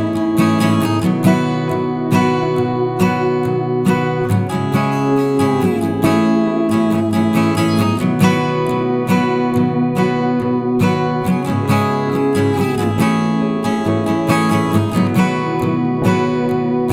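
Instrumental background music led by strummed acoustic guitar, with a steady strumming rhythm and a few notes that slide down in pitch.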